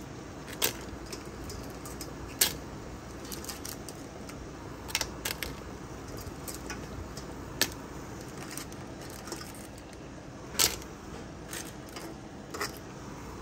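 Raw blue crab pieces and claws clacking against a stainless colander and cooking pot as they are handled: sharp single clicks every second or two, about eight in all, the loudest a few seconds in and again near the end, over a steady low hiss.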